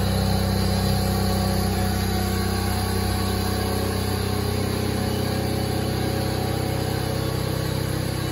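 Rice transplanter's small engine idling steadily, an even low drone.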